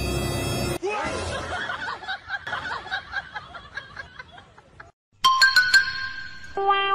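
Eerie background music that cuts off under a second in, followed by about four seconds of a person laughing in quick repeated giggles that fade away. After a brief gap, a short bright electronic jingle of ringing tones ends in a held beep.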